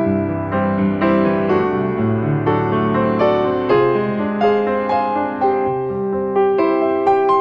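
Background piano music: a gentle melody of struck notes, about two a second, over held lower notes.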